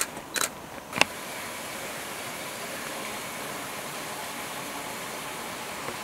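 A few sharp clicks in the first second, the loudest about a second in, followed by a steady, even hiss of outdoor background noise.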